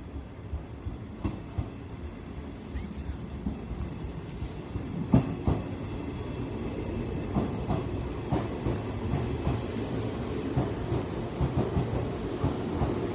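JR Shikoku 113 series electric train running on the rails, a low rumble with irregular clicks and knocks from the wheels, getting steadily louder, with one sharper knock about five seconds in.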